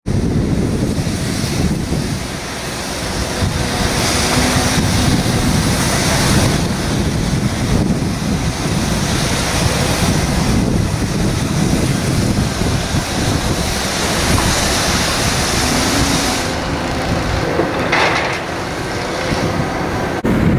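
Wind buffeting the microphone over the steady running of heavy diesel machinery: a Cat tracked hydraulic excavator working.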